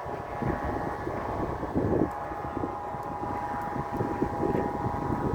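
Bamboo flutes on many flying kites sounding together in strong wind: a steady drone of several held pitches at once, over wind rumble on the microphone.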